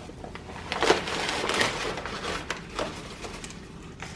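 Paper flour bag crinkling and rustling as a hand digs inside it, scooping flour into a measuring cup from a nearly empty bag. The rustling is loudest between about one and two and a half seconds in.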